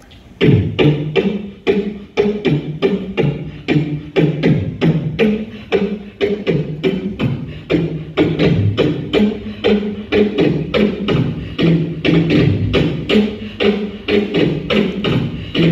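Beatboxing into a microphone: a steady beat of vocal kick and snare hits, about three or four a second, over a pitched vocal bass. It starts about half a second in.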